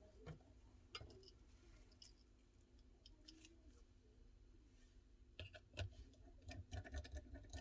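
Faint small clicks and light taps of phone-repair tools and tiny parts being handled on a work surface, a few at first and coming more often near the end.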